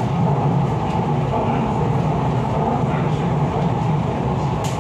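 Steady running noise heard inside the carriage of an MTR East Rail line R-Train electric multiple unit, a low rumble with an even hiss over it. There is one short sharp click near the end.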